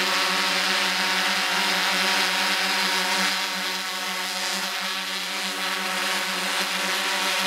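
Quadcopter drone's propellers and motors whirring steadily, a buzz pitched around 200 Hz; it eases a little for a few seconds in the middle.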